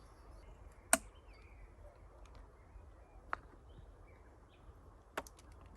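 Quiet forest background with faint bird chirps, broken by three sharp knocks: a loud one about a second in, a weaker one about three seconds in, and another near the end.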